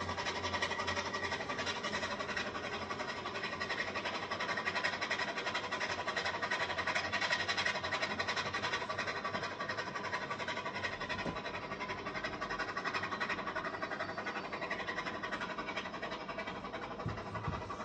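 009 narrow-gauge model train running on its track: a steady, rapid clicking rattle of wheels and mechanism, a little louder a few seconds in and fading slightly as the train moves away.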